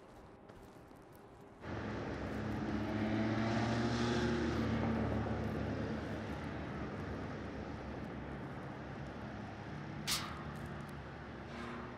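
A steady engine rumble with a low hum cuts in suddenly about a second and a half in, swells for a few seconds, then slowly fades. A sharp click sounds near the end.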